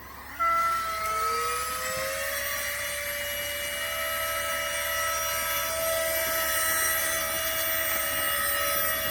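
Flextail Tiny Pump, a small battery electric air pump, switching on and inflating an inflatable sleeping mat: its motor whine rises in pitch over about two seconds, then runs steadily over the rush of air.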